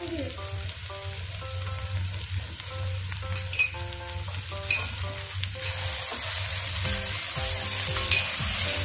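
Chopped vegetables frying in a white enamel pan, sizzling as a wooden spatula stirs them; the sizzle grows louder about halfway through, and a few sharp clicks stand out. A light background melody plays along.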